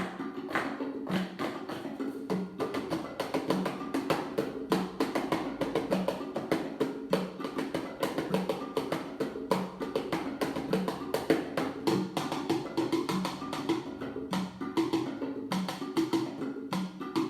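Percussion music: fast, dense hand-played strikes over a steady beat, with a low note recurring about every 0.6 s.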